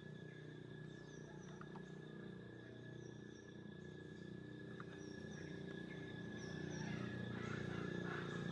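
Outdoor ambience: short high chirps recurring every second or so over a steady hum and a thin continuous whine, growing slightly louder near the end.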